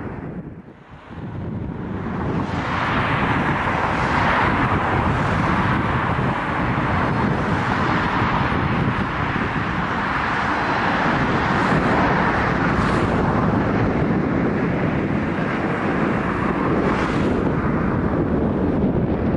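Airbus A321neo jet airliner flying low over the runway on landing: steady jet engine and rushing air noise that swells a couple of seconds in and then holds, with wind buffeting the microphone.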